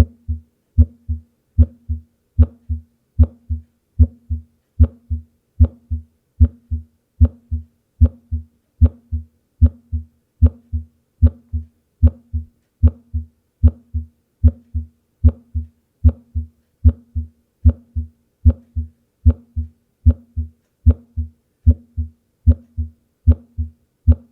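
Normal human heart sounds: a steady lub-dub rhythm, each beat a pair of short low thumps, the first heart sound (S1, mitral and tricuspid valves closing) followed closely by the second (S2, aortic and pulmonary valves closing). The rate is a little over one beat a second.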